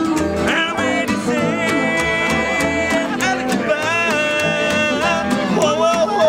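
Acoustic bluegrass band playing an instrumental break: a harmonica lead with long held and bent notes over strummed acoustic guitar, mandolin and dobro.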